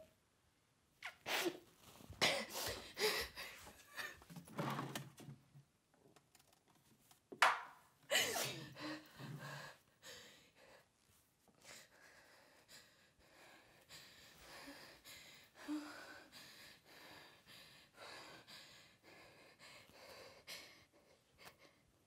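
A woman sobbing without words: two bouts of sharp gasping, sniffing breaths, then softer, shaky breathing.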